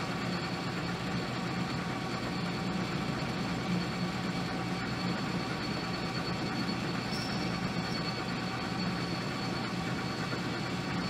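Metal lathe running steadily, its spindle motor and gearing giving a constant mechanical hum with a few fixed tones. A faint high whine comes in briefly about seven seconds in.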